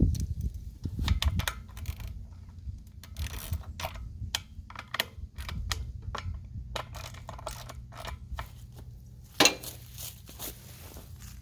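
Irregular small clicks and clacks from hand-working the recoil pull-starter assembly of a small Briggs & Stratton engine, with one sharp, louder click about nine and a half seconds in.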